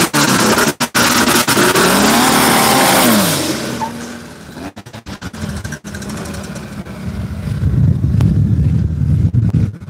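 A modified car engine revving up and down several times, loud and close, for about the first three and a half seconds, then falling away; a deeper engine rumble builds near the end.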